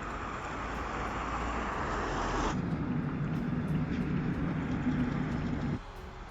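Road and wind noise from a Volkswagen ID. Buzz electric van driving, with no engine sound. The noise changes character abruptly twice, about two and a half seconds in and again near the end, as the footage cuts between driving shots.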